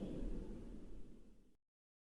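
Tail of an explosion sound effect: a low rumble dying away, then cut to dead silence about one and a half seconds in.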